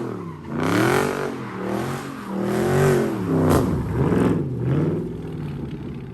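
392 Hemi V8 being revved, its pitch swinging up and falling back again several times in a row.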